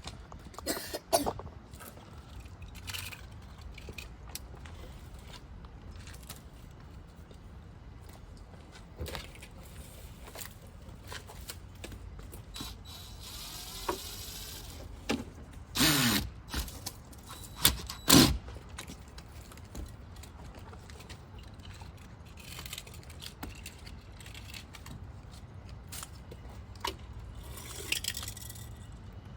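Scattered clicks, knocks and clatter of hand work, with a brief hiss just before the middle and two louder thumps a little past it, over a low steady hum.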